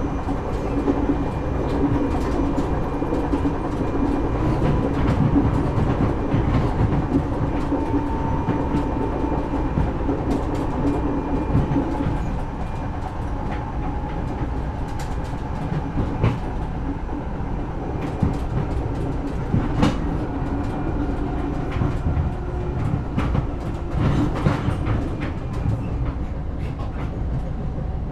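Inside a local train carriage running slowly: a steady low rumble with faint whining tones, and scattered clicks and knocks from the wheels and the rattling carriage.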